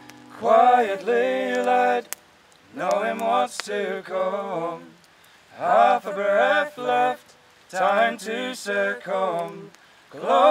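Unaccompanied folk singing: five short sung phrases, each followed by a brief pause, with no instruments playing.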